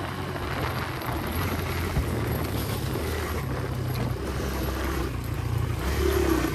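Kawasaki KLX 140 dirt bike's single-cylinder four-stroke engine running as it is ridden, its note stepping up and down with the throttle.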